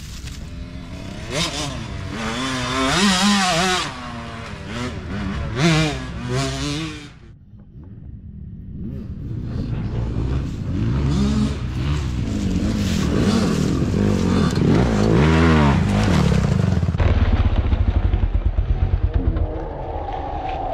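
Dirt bike engines revving, their pitch rising and falling with the throttle as bikes ride through the trail section. After a short lull, engine noise builds again, and near the end one engine runs at low revs with an even, pulsing beat.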